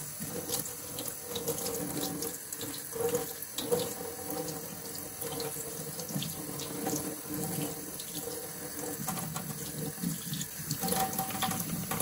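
Kitchen faucet running, its stream splashing onto a cloth baseball cap and into a stainless steel sink, the pitch of the splashing shifting as the cap is turned under the water.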